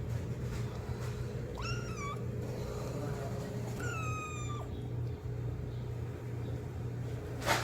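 Kitten meowing twice, calling for its mother: a short arched meow about two seconds in, then a longer, falling one about four seconds in. A steady low hum runs underneath, and a sharp click comes near the end.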